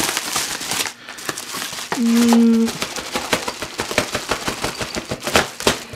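Yellow padded mailer envelope rustling and crinkling as it is handled and pulled open, a dense run of small crackles. About two seconds in comes a short steady hum lasting under a second.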